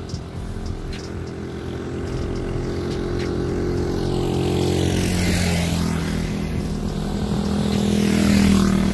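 Small motorcycle engines coming up the climb behind, their drone growing steadily louder and falling in pitch as the nearest one goes by near the end.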